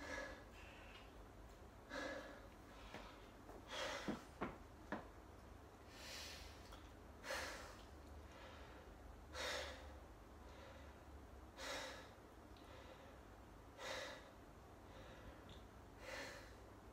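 A weightlifter breathing hard while recovering between heavy snatch attempts: deep, noisy breaths about every two seconds. A few light knocks come about four seconds in.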